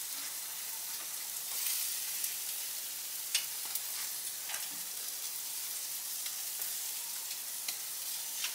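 Skirt-steak fajitas and short ribs sizzling on the grate of a Santa Maria grill over a post oak and charcoal fire, a steady high hiss, with a few short sharp clicks.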